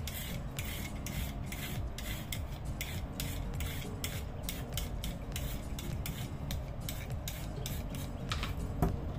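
Vegetable peeler scraping the hairy skin off a fresh yam in short, repeated strokes, about two or three a second.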